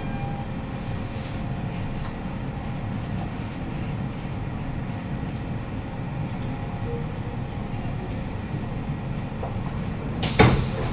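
Siemens C651 MRT train heard from inside the car: a steady rumble of wheels and running gear, with a faint motor tone fading out at the very start. A single sharp clunk comes near the end.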